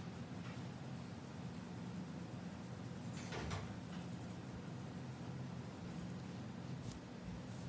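Coloured pencil scratching on paper in repeated shading strokes, over a steady low hum.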